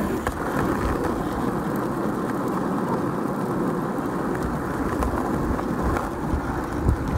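Skateboard wheels rolling over rough asphalt, a steady rumble, the board being towed along by a running sled dog.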